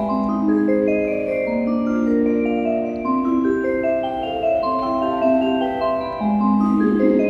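Station platform train-approach melody: a chime-like tune of sustained, overlapping mallet-like notes, played over the platform speakers as a train pulls in.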